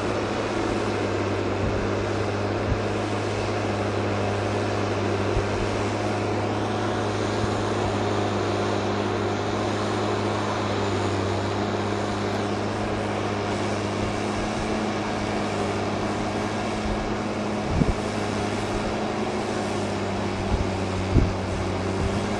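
Tractor diesel engine running steadily under load as it pulls a plough through the soil, a constant low hum that holds its pitch. A few brief low bumps come near the end.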